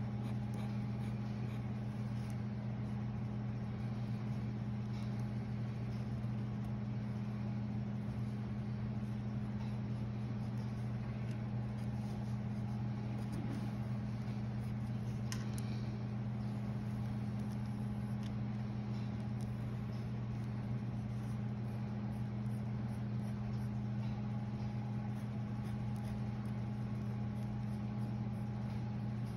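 A steady low hum of electrical or ventilation machinery, with faint scratches of a pencil tracing on paper.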